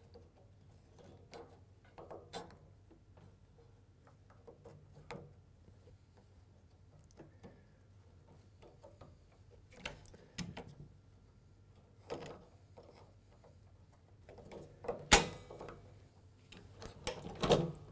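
Scattered light clicks and knocks of metal parts as a drive belt is worked by hand onto the pulleys of an Allett Stirling cylinder mower's belt drive, with its tensioner lifted and let back. One sharp click about 15 seconds in is the loudest, and a run of quicker clicks comes near the end.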